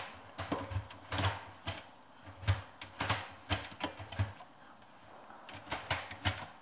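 Lotus Elise gear lever on an Inokinetic ShiftR111 shifter with upgraded shift cables, moved by hand from gear to gear: a run of irregular clicks and clunks as the lever goes into each gate, with a short pause about two-thirds of the way in.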